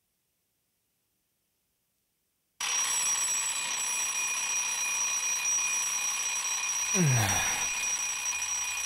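Alarm clock ringing, a steady bright ring that starts suddenly after about two and a half seconds of silence. About seven seconds in, a short low sound falling in pitch comes over it.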